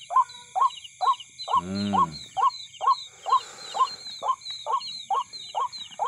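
An animal call, a short note repeated evenly about two to three times a second, over a steady high chirring of night insects. A brief low hum comes about two seconds in.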